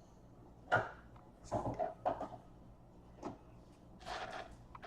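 Trading cards being handled: a few short rustles, slides and taps of cardboard cards, about a second in, in a cluster around the middle, and again near the end.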